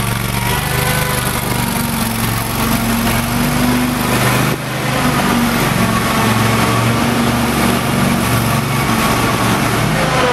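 Kohler engine of a Bush Hog zero-turn commercial mower running steadily as the mower drives, with a brief dip in loudness about four and a half seconds in.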